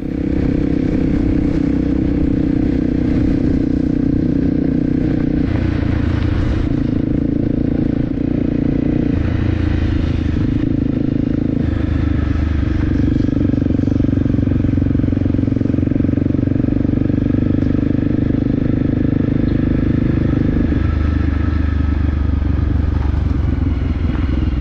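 Motorcycle engine running steadily while riding, its engine note stepping up and down several times as the speed changes.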